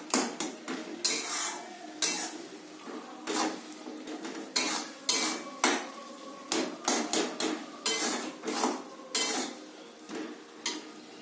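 Metal spatula scraping and clinking against a metal kadai while a thick chutney is stirred, in irregular strokes about once or twice a second, growing quieter near the end.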